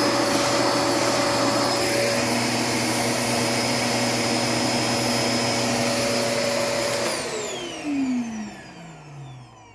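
LG Cyking C33FNT canister vacuum cleaner motor running steadily at high speed, then switched off about seven seconds in and winding down with a falling whine that fades out. The motor keeps this high speed after the suction has been briefly blocked until the power is cut, which the owner takes for a design defect.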